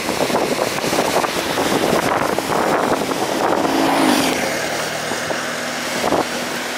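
Bus engine running as the bus moves along the road close by, its pitch rising briefly about four seconds in.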